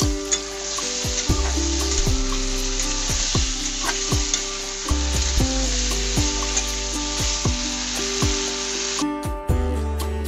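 Sliced ivy gourd (kunru) sizzling in hot oil with fried spice paste while a metal spatula stirs it around the pan. The sizzle drops out briefly near the end.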